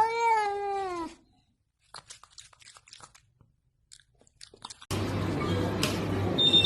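A cat meows once, a call that rises and then falls for about a second, followed by a few seconds of small, irregular crunching and chewing sounds. About five seconds in, a steady hiss with a low hum sets in.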